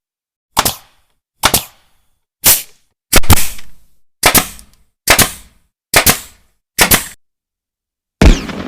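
Gunshot sound effects: a string of single sharp shots, about one a second with silence between, then a heavier blast near the end with a long fading tail.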